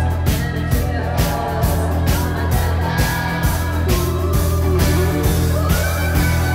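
A live rock band playing amplified through a club PA, with drums keeping a steady beat under a low sustained bass, electric guitars and a bowed viola whose sliding notes run through the middle of the sound.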